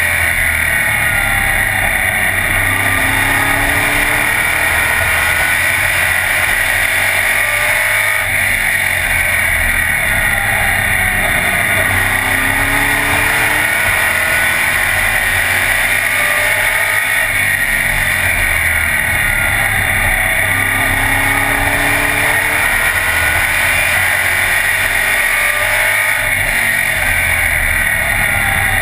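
A race car's engine heard from inside the cockpit, running hard around the track. Its pitch rises and falls in a repeating cycle every several seconds as the driver accelerates and lifts.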